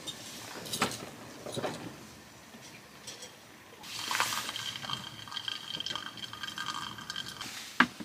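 Pour-over coffee brewing into a stainless steel cup. There are a couple of light metal clinks, then a steady trickle of liquid with a faint ringing for about three and a half seconds as coffee drains through the paper filter, and a sharp knock near the end.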